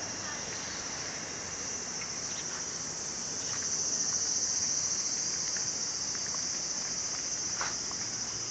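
A steady, high-pitched chorus of insects from the park's trees and hedges, swelling a little about halfway through.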